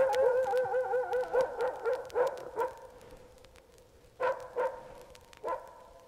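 Recorded intro of a Balkan-dub track: a dog's yips and whimpers in short pitched calls, with a wavering whine lasting about a second and a half at the start. The calls thin out and fade toward the end.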